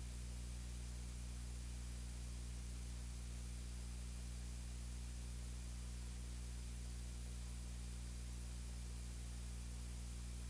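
Steady low electrical hum with a constant hiss, unchanging throughout; no speech is heard.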